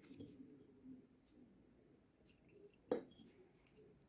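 Near silence: room tone, with one short light knock about three seconds in.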